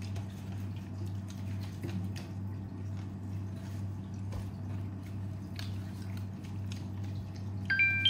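Quiet eating sounds: a spoon scraping and scooping sauce in a paper food box, with soft chewing, over a steady low hum. Near the end comes a short electronic chime of three rising notes.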